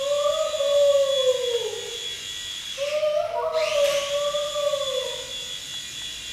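Small electric motor of a toy helicopter whining, its pitch wavering up and down. About three seconds in it briefly dies away and spins back up.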